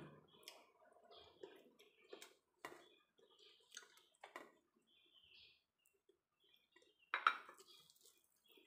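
Quiet sounds of eating by hand: soft clicks and scrapes of fingers gathering rice in a stainless steel bowl and picking up food, with faint chewing, and one louder brief sound about seven seconds in.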